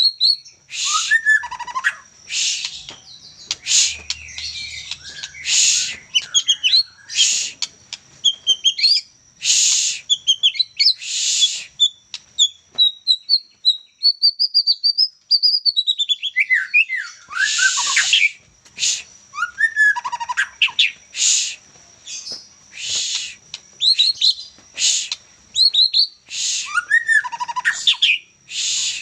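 White-rumped shama (murai batu), a young Medan-strain bird still in trotol plumage, singing continuously. Its song is loud short whistles and chirps about every second, with a long run of rapid notes that rise and then fall in pitch around the middle.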